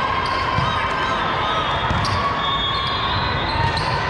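Busy gym din during volleyball play: balls being hit and bouncing on the hard court floor, with short sneaker squeaks and a murmur of voices.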